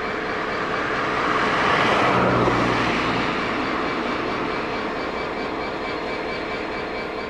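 Class 66 diesel locomotive's two-stroke V12 engine working as it draws a short autoballaster train slowly past. The sound swells to its loudest about two seconds in, then eases.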